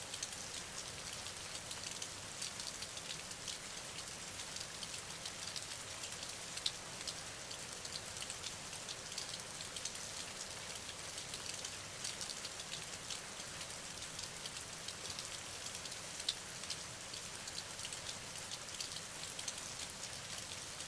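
Steady rain falling, a continuous hiss with the quick ticks of many individual drops; two single drops stand out a little louder, one about a third of the way through and one later on.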